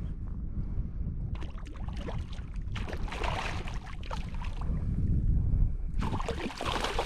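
Wind rumbling on the microphone, with water splashing and sloshing in three bursts, about a second and a half in, around the middle and near the end.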